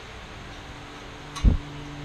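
Steady low background hum with a single sharp knock about one and a half seconds in.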